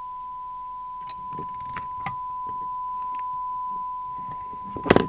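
Steady 1 kHz test tone, the standard modulation tone for receiver sensitivity (SINAD) testing, with a few light clicks of bench handling and a louder knock near the end.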